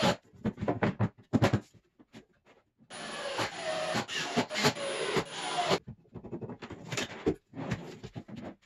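Ryobi cordless drill driving screws through metal drawer slides into a plywood cabinet, running for about three seconds in the middle with a thin high whine. Around it, scattered clicks and knocks as the drawers and slide hardware are handled.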